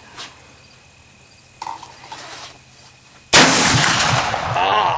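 BPI Buckhorn .50-caliber muzzleloading rifle firing a 90-grain FFG Pyrodex charge: one very loud shot about three seconds in, followed by a loud tail that lasts about a second and a half.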